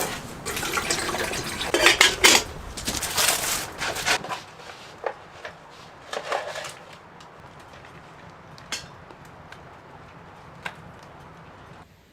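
Cookware and utensils clinking and clattering, busy for the first four seconds, then a few separate clinks spaced out over the rest.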